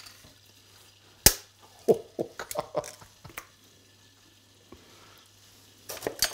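An egg being cracked with a table knife over a mixing bowl: one sharp crack about a second in, then a few softer short taps and clicks, and another light tap near the end.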